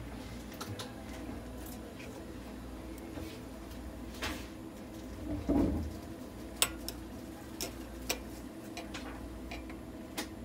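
Steady low hum of oxygen-therapy cage equipment running, with a few sharp clicks and knocks and one brief, louder low sound a little past halfway.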